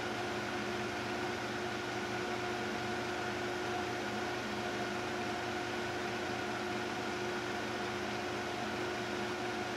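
Steady machine hum with an even hiss, like a fan running, holding a few faint steady tones and never changing.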